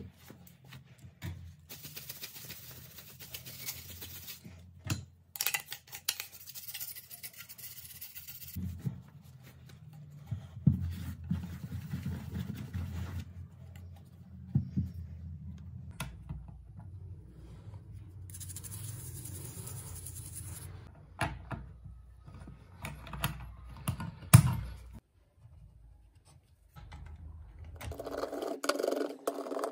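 Cloth wiping and rubbing over the metal casing of a 3.5-inch desktop hard drive, in irregular stretches of scraping, with handling clicks and knocks, the sharpest about 24 seconds in. Near the end a steady buzzing hum starts.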